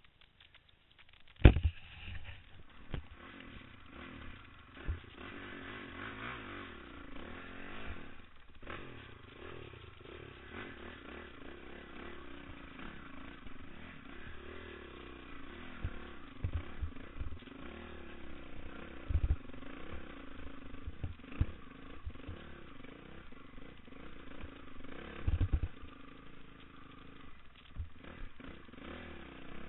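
Dirt bike engine revving up and down as it is ridden over a rough trail, with scattered knocks and thumps from the bumpy ground. A loud thump comes about a second and a half in, before the engine is heard.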